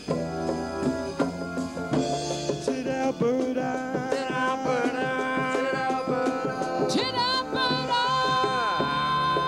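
Live band playing an instrumental passage: drums and percussion under long held melody notes that waver in pitch, with one slide downward near the end.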